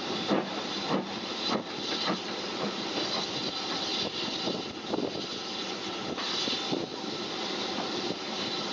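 BR Standard 2-6-4T steam tank engine pulling its train away from a station. Sharp exhaust chuffs come about every two-thirds of a second at first, then run together into a steady hiss and rumble as the train gathers way.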